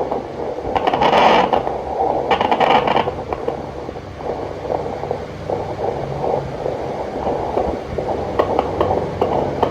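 Fetal Doppler monitor's speaker hissing, with two bursts of scraping as the probe slides over the gelled belly about one and two and a half seconds in. From about four seconds in comes a fast, even whooshing pulse: a fetal heartbeat being picked up in a twin pregnancy.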